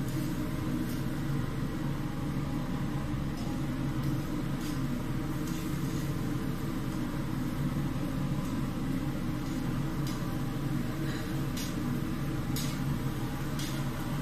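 A small motor humming steadily, with a few faint clicks scattered through it.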